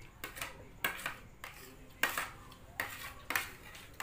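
Metal spoons and forks clinking and scraping against plates as several people eat, in irregular sharp clicks a few times a second.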